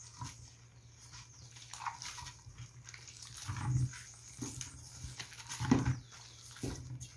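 Hands kneading sticky cassava-starch and corn-flour dough with a raw egg in a metal bowl: soft wet squelching with occasional knocks, two louder squelches about halfway through and near the end.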